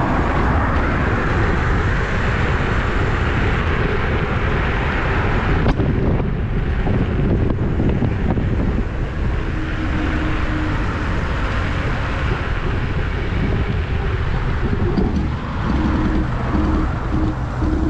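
Wind buffeting the action-camera microphone with road noise while riding a Dualtron electric scooter. Near the end a low hum cuts in and out several times.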